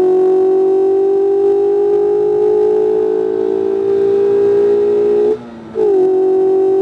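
Mazda MX-5 RF's 2.0-litre four-cylinder engine accelerating, its note rising slowly, then cutting out briefly about five seconds in for a gear change and coming back at a slightly lower pitch.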